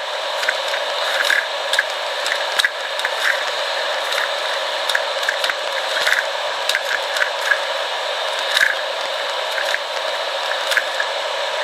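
Plastic 3x3 speed cube being turned quickly during a solve: a continuous clicky rattle of layer turns, with frequent sharper clacks. The cube is still dry, not yet lubricated.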